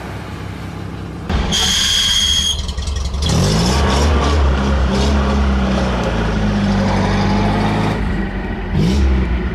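Off-road 4x4's engine revving hard under load in mud, the revs rising and falling several times. Just after the start, a brief high-pitched whine lasting about a second.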